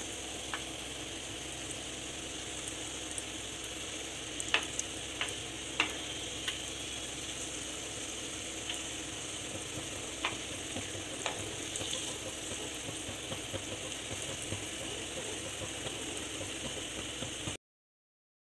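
Samosas deep-frying in hot oil in a non-stick pan: a steady sizzle, with a few light clinks of a steel spoon against the pan as they are turned. The sound cuts off shortly before the end.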